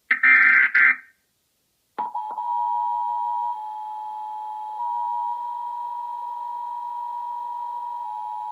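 Emergency Alert System broadcast tones on a TV: a second-long burst of screeching digital data tones (the alert header), then about two seconds in the steady two-tone attention signal begins and holds.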